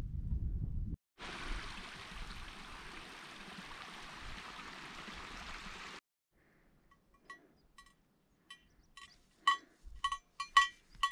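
Sheep bell clinking in irregular strokes, each ringing at the same clear pitches, louder and more frequent toward the end. Before it, a few seconds of steady rushing hiss, with a low wind rumble in the first second.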